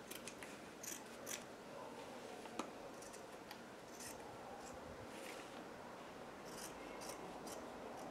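Fabric scissors snipping through layered quilted fabric and batting: a run of short, faint snips at irregular intervals as the boxed corners are cut out.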